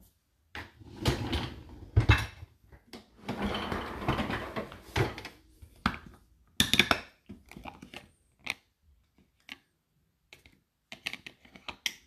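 Irregular plastic clicks, knocks and rustling as hands work the detergent dispenser and its flap on the open door of a Whirlpool dishwasher.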